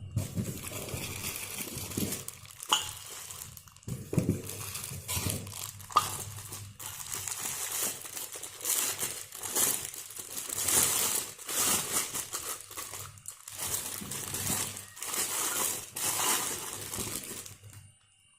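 Packaging crinkling and rustling as stainless steel cups are unwrapped by hand, with occasional sharp clicks.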